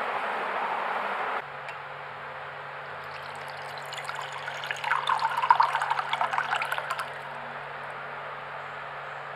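Water poured into a ceramic mug, splashing and trickling for about three seconds before it stops. Before it, a steady hiss cuts off after about a second and a half, and a faint steady hum runs underneath.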